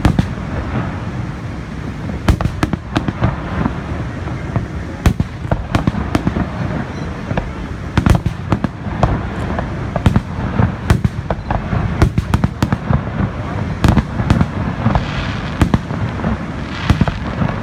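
Fireworks going off: a fast, irregular string of sharp bangs and cracks over a steady low rumble.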